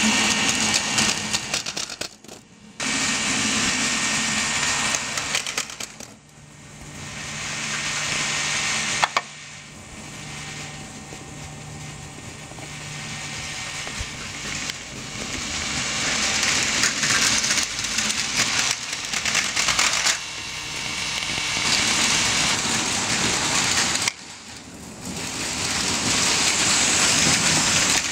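Battery-powered Plarail Advance toy trains running on plastic track: small motors whirring and wheels rattling over the track, with a faint steady hum. The sound drops off and comes back abruptly a few times.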